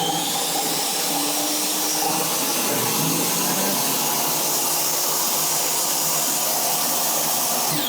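Ridgid R4514 10-inch jobsite table saw running at full speed with no load: a steady, loud motor and blade whine. It is switched off right at the end, and the pitch begins to fall as the blade brakes down.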